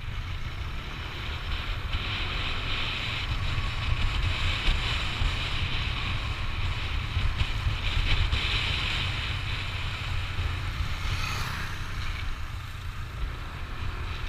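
Riding noise from a Yamaha NMAX scooter under way: steady wind buffeting on the microphone over the scooter's engine and road noise.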